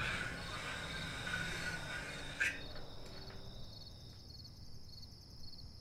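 A cricket chirping at a steady rhythm, about three chirps every two seconds, after a single sharp click about two and a half seconds in.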